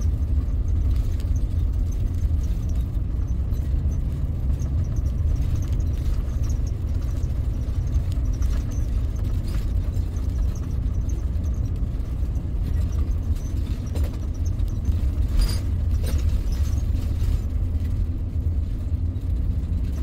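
Steady low rumble of a motorhome driving along a paved road, engine and tyre noise.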